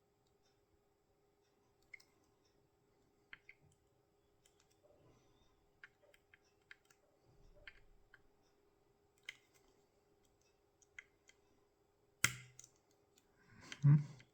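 Faint, scattered small metallic clicks from picking a hex-core tubular lock, as its pins set one by one under tension. About twelve seconds in comes a sharper, louder click, and just before the end a heavier knock.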